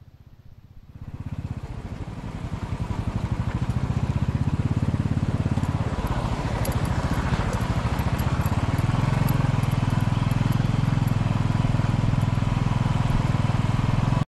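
Motorcycle engine running under way on a rough gravel track, getting louder about a second in as it speeds up, with wind and road noise over it.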